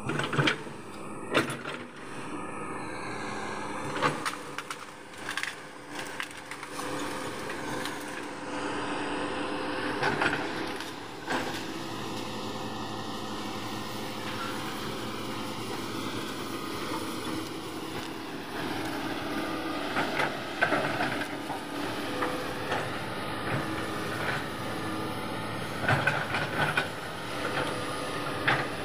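Hitachi 210F excavator's diesel engine running steadily under load, with repeated sharp cracks and crunches of trees and branches snapping as the machine pushes them over, a crunch the operator likens to eating crackers.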